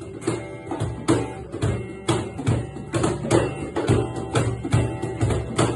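Instrumental passage of an acoustic-style song: percussion keeping a steady beat, with strummed guitar.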